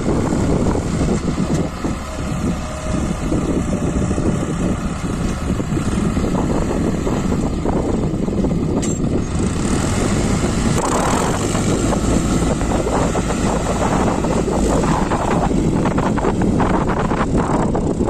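New Holland 5500 55 hp tractor's diesel engine running steadily under load as its front dozer blade pushes soil across the field.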